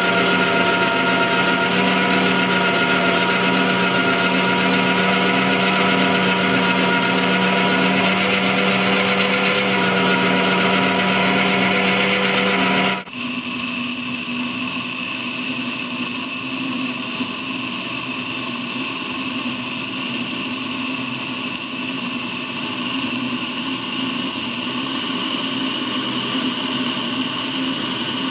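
Harrison lathe drilling into a spinning metal workpiece with a large twist drill under flowing coolant, running with a steady hum. About thirteen seconds in the sound switches abruptly to a boring tool cutting inside the bore, with a steady high whine.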